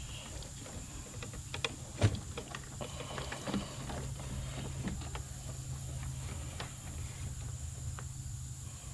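Scattered clicks and light knocks of wiring being handled and worked through the vehicle's interior, with one sharp knock about two seconds in, over a steady low hum.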